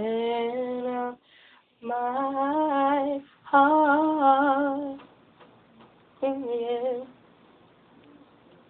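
A woman's voice singing unaccompanied, drawing out wavering held notes with vibrato in four phrases. The singing stops about seven seconds in.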